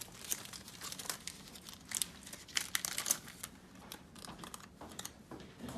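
Crinkling and rustling of a SealPod foil lid and its packaging being handled, in short, irregular crackles with small clicks.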